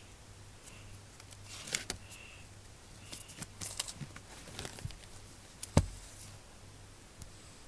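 Handling noise: scattered rustles and clicks, then one sharp knock a little under six seconds in, over a steady low hum.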